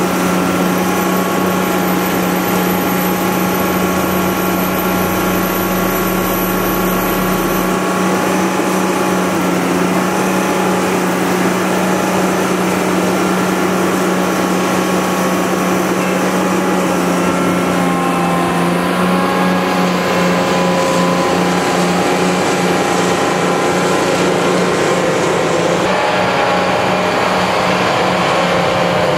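Diesel engines and hydraulics of a line of shear-wave seismic vibrator trucks running, a loud steady drone with a strong low hum. The sound shifts about two-thirds through as the trucks move off across the field.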